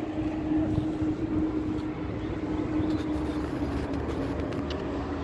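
Vehicle traffic: a steady engine drone at one pitch over a low rumble.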